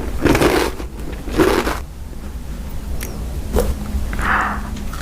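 Close-up eating sounds: two loud crunches of chewing in the first two seconds, then quieter mouth sounds with a click.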